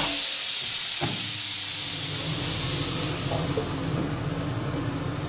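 Kitchen sink faucet running steadily, water hissing into the sink basin; a single knock about a second in.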